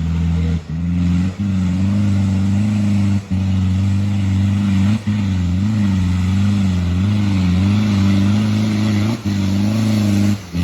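Off-road 4x4 engine running hard under load, its pitch wavering up and down, with several brief breaks.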